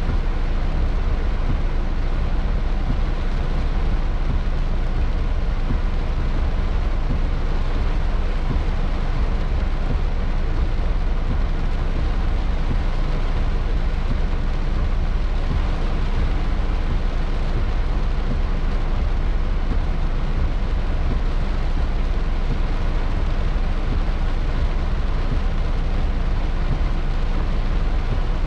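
Heavy rain falling on a car's roof and windshield, heard from inside the stopped car as a steady noise with a strong low rumble.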